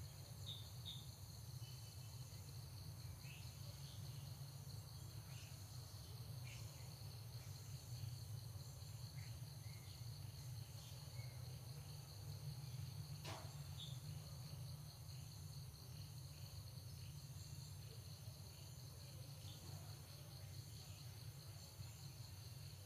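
Faint outdoor insect chorus: a steady, high, finely pulsing trill of crickets or cicadas over a low steady rumble, with scattered faint short chirps and one sharp click about halfway through.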